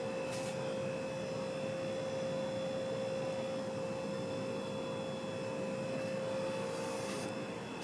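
Hunter Original oil-bath ceiling fan running steadily on medium speed: a steady hum with the whoosh of moving air. The motor is running without its oil, drained before shipping.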